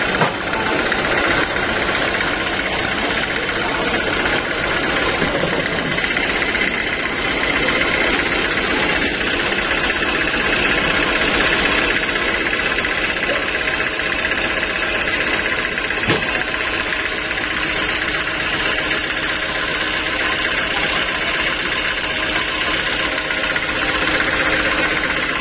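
A band sawmill's engine running steadily at an even pitch, with no cut under way.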